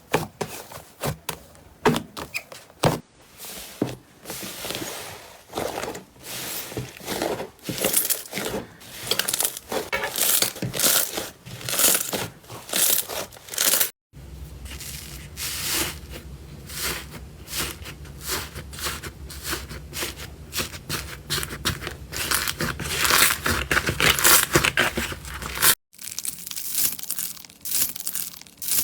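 Slime being squeezed and pressed close to the microphone, giving a dense, uneven run of sharp little pops and clicks. The sound breaks off twice at cuts, and a low steady hum lies under the middle stretch.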